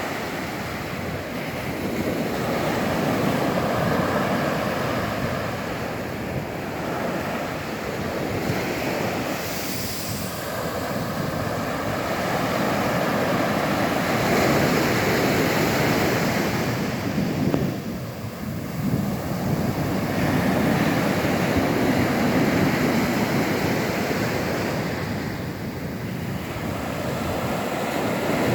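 Ocean surf breaking on a sandy beach, a continuous wash that swells and eases every several seconds as waves come in, with wind rumbling on the microphone.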